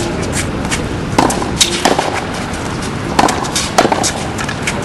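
Tennis rally on a hard court: a string of sharp knocks as the ball is struck by the rackets and bounces, a few strokes clustered about a second in and again after about three seconds, over a steady background hiss.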